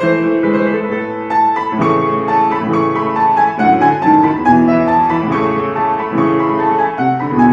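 Instrumental piano music: a melody of separate notes over held lower notes.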